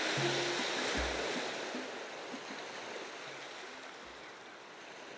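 Surf on a beach: an even hiss of waves washing ashore that fades out gradually.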